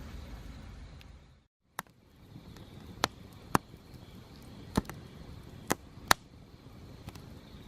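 Wood fire crackling, with a sharp pop from the burning firewood every half second to second after a brief dropout about a second and a half in. A low, steady rumble runs before the dropout.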